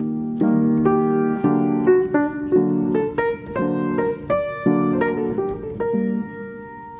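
Background piano music: a running melody of notes and chords that gets softer toward the end.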